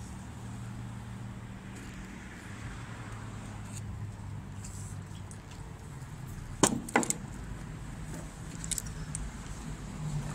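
Steady low engine hum, with two sharp metallic clacks close together about two-thirds of the way in and a lighter click shortly after.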